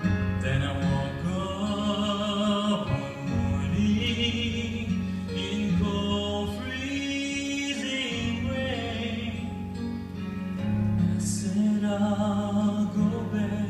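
A song: a solo voice singing long held notes with vibrato over instrumental accompaniment with a steady bass line.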